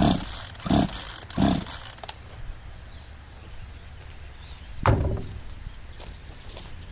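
Craftsman chainsaw's recoil starter cord being yanked: three quick pulls in the first second and a half, then one harder pull about five seconds in. The engine does not catch.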